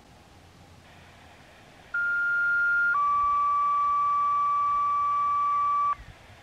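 Two-tone sequential radio paging tones, over a faint radio hiss: a higher steady tone for about a second, then a slightly lower tone held about three seconds that cuts off sharply. This is the dispatch page that signals the outdoor warning sirens are about to be activated.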